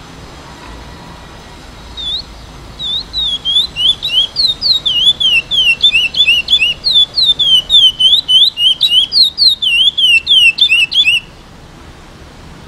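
A young, still brown-plumaged male chestnut-bellied seed finch (curió), about eight months old, sings a long, fast run of clear, slurred whistled notes in an early attempt at the Praia Grande clássico song. The song starts about two seconds in and breaks off abruptly a second and a half before the end.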